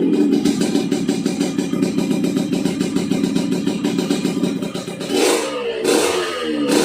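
Yamaha RX-King's 135 cc single-cylinder two-stroke engine held at high revs for about five seconds, then blipped twice near the end, with a rough, snoring exhaust note.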